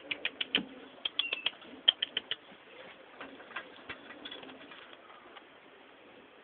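Gerbils scratching and moving about in a cage of wood-shaving bedding and plastic tubes: a quick, irregular run of sharp clicks and scratches for the first couple of seconds, then sparser ticks.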